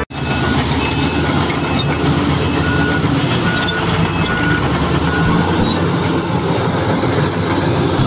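Komatsu D85 crawler bulldozer working: its diesel engine runs steadily under load over the clatter of its steel tracks. A faint beep repeats a few times in the middle.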